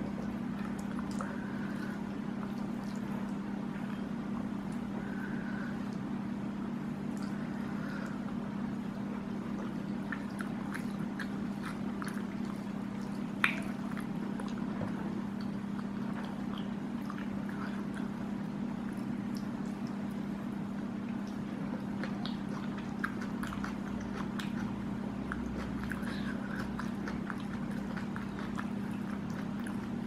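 Close-up eating sounds: soft chewing of squid and rice, with small scattered clicks of fingers working food on a plate, over a steady low hum. One sharper click about halfway through.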